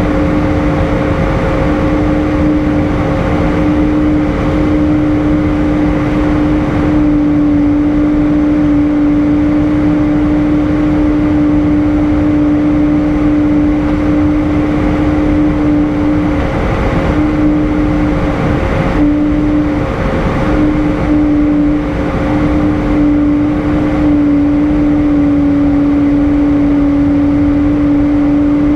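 Airbus A320 passenger-cabin noise in flight: a loud, steady roar of engines and airflow with a strong steady drone tone over it. The tone breaks up and wavers slightly in pitch in the second half.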